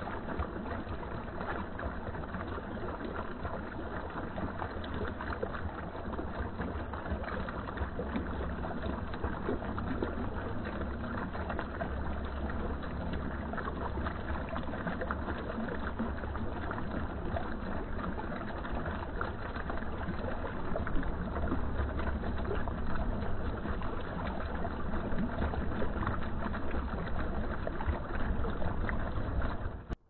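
Fountain water splashing steadily from a small cascade into a pond, with a low rumble underneath; it grows a little louder about two-thirds of the way in.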